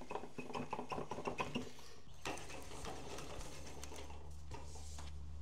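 A quick run of light clicks and ticks from a spinning reel and rod being handled while fishing line is wound on. About two seconds in there is a sharp tick, then a faint steady low hum sets in.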